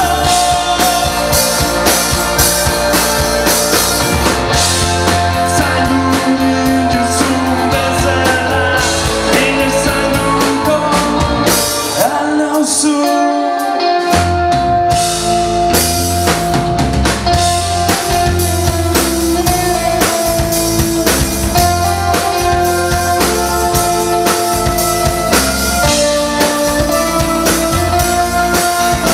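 Live rock band playing: electric guitars, bass guitar and drum kit, with keyboard. About twelve seconds in, the bass and drums drop out for a couple of seconds, then the full band comes back in.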